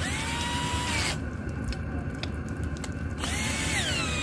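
Cordless drill fitted with a long socket extension winding a caravan's corner stabiliser legs down, running twice for about a second each time, its motor whine rising to speed and falling away as it stops.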